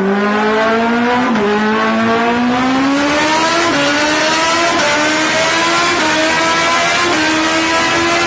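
Kawasaki Ninja H2's supercharged inline-four running hard on a rolling-road dyno, its engine note climbing steadily in pitch as it accelerates under load, with a few short dips along the way.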